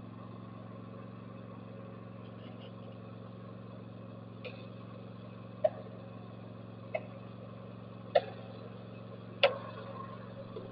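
Toro zero-turn mower's engine idling steadily with the blades (PTO) disengaged, an even low hum. Over it, from about four seconds in, comes a run of sharp clicks about every second and a quarter, the later ones loudest.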